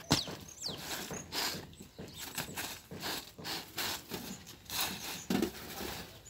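Handling of flat round loaves on a metal oven tray: irregular scrapes, taps and knocks as the loaves are lifted off and set into a straw basket, with a sharp knock at the start. Near the end a cloth rubs over the tray.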